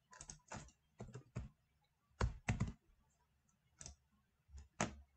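Quiet computer keyboard keystrokes and mouse clicks as a number is typed into a box and submitted: about a dozen short separate taps, the loudest a little over two seconds in.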